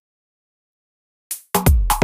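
Dead silence for more than a second, then an electronic drum-machine beat starts: a short hit, then a deep kick with sharp snare- and hi-hat-like hits.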